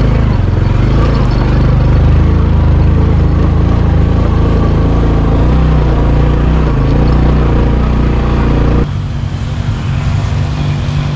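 Vehicle engine running hard under load in second gear on a steep dirt climb. About nine seconds in its sound falls away sharply and carries on quieter.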